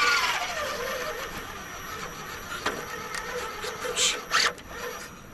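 RC scale crawler truck's electric motor and gear drivetrain whining as it crawls. The whine falls in pitch at the start and then holds steady, with a few clicks and two short scrapes about four seconds in.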